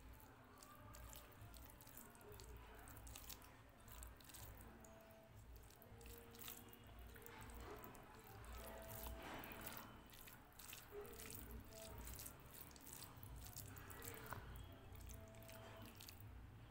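Fingers mashing and mixing wet dal into rice on a plate: faint soft squishing with many small clicks.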